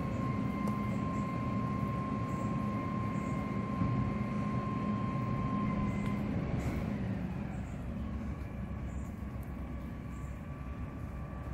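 Heavy vehicle rumbling past, with a steady high whine over it that stops about six seconds in, after which the rumble fades.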